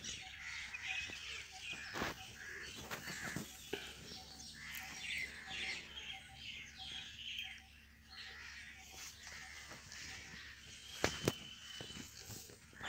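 Birds chirping and calling, many short notes and quick falling strokes, with a brief steady whistled note near the end and a few sharp clicks.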